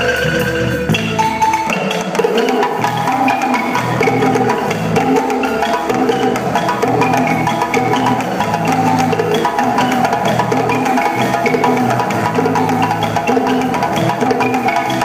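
Balafon (West African wooden xylophone) music: quick, rhythmic mallet-struck wooden notes in repeating melodic figures over lower notes.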